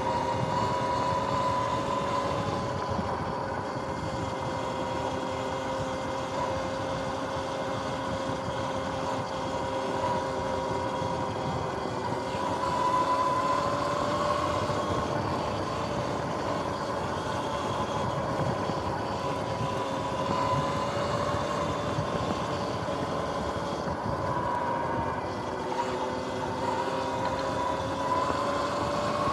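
Sur-Ron X electric dirt bike, freshly tuned and cleaned, whining steadily as it is ridden; the whine rises and falls with speed and climbs near the end, over a constant rushing noise.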